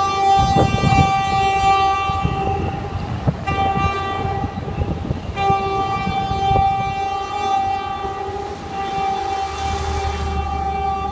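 Horn of a PNR 900 class diesel locomotive sounding a chord of several steady tones in long blasts, broken twice and growing fainter near the end, over the low rumble of the train pulling away.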